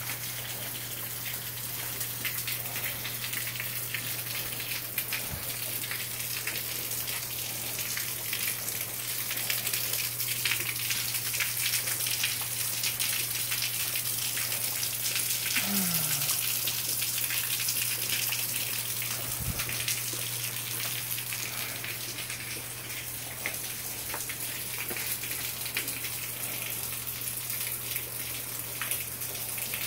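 Heavy rain pouring steadily, a dense patter of drops over a rushing wash of water, swelling a little louder in the middle.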